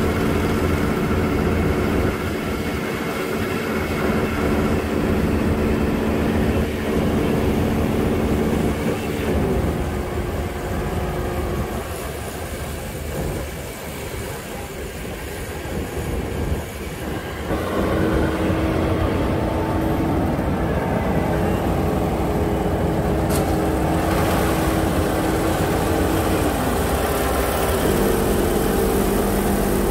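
Rice combine harvesters running in the field, dominated by the steady engine drone and machinery whir of the nearby Kubota combine. The drone eases off for a few seconds in the middle and swells again about 17 seconds in, and the engine pitch sags slightly twice.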